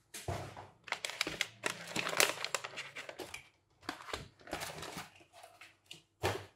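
Parcel packaging being torn open and unwrapped by hand: irregular crinkling and crackling of plastic and tape, with a short loud burst near the end.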